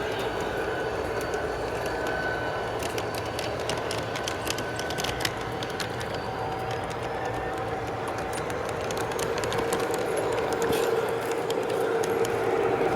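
G scale model train running along its track: a steady motor hum with a run of clicks over the rail joints, growing louder near the end as it comes closer.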